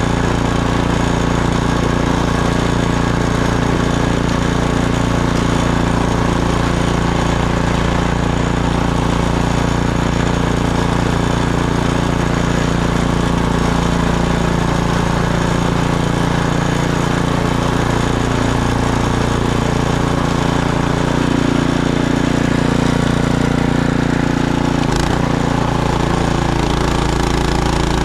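Gas snowblower engine running steadily under load, its pitch shifting slightly in the last third.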